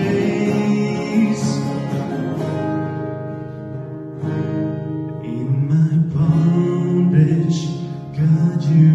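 Live worship song: a man's voice singing long held notes over guitar, with a dip in loudness partway through before the music swells again.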